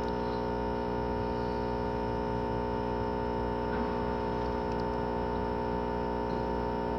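A steady, unchanging hum made of many evenly spaced tones, with one higher whine standing out above the rest.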